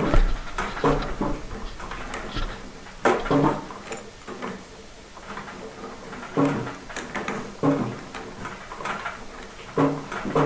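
Black iron gas pipe fittings being handled and threaded together, giving irregular metal knocks and clinks with a short ring, about ten over several seconds.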